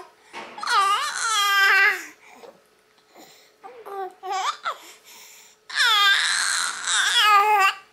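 Baby vocalizing in two loud, drawn-out, high-pitched calls, about half a second in and again from about two-thirds of the way through, with a few short, quieter babbling sounds between them.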